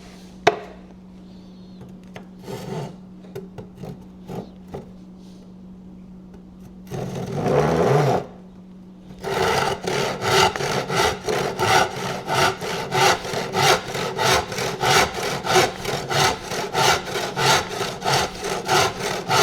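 A saw cutting through wooden stakes, in steady back-and-forth strokes about two a second that begin about nine seconds in. Before that, a sharp click and a few light handling knocks.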